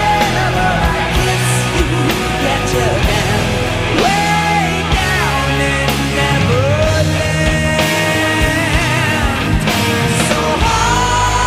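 Rock song with a sung vocal line over loud, steady guitars, bass and drums.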